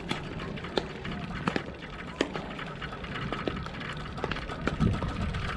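Pickleball rally: paddles hitting the hard plastic ball, sharp hollow pops coming irregularly, at times less than a second apart.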